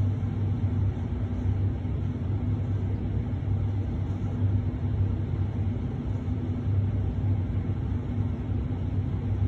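Steady low mechanical hum: a constant drone with a fainter, higher steady tone above it.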